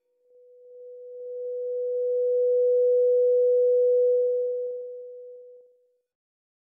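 A pure sine tone from the Dexed FM software synth, played through an Arduino breath controller. The tone swells up and fades away over about six seconds as the breath pressure rises and falls.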